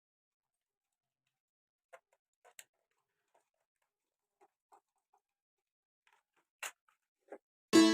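Near silence broken by a few faint, short clicks, then background music with a plucked-string sound starts near the end.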